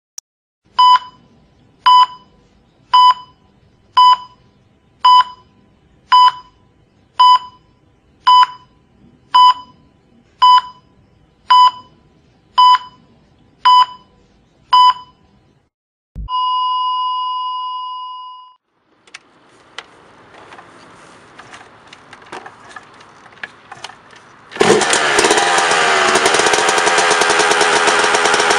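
Electronic beeps about once a second, then one long steady tone in the manner of a heart monitor flatlining, followed by faint handling noises. Near the end, a Yamaha YZ125's single-cylinder two-stroke engine starts and runs loudly, its pitch dipping and rising as it catches.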